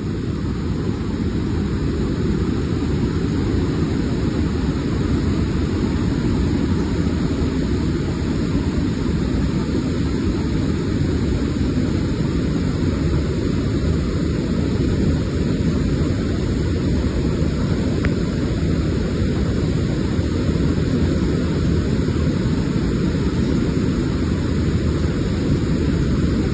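Waterfall's rushing water: a loud, even, deep rush that does not change.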